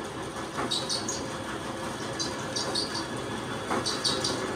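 Steady drone of a drainage pump motor running, with clusters of short, high bird chirps repeating over it.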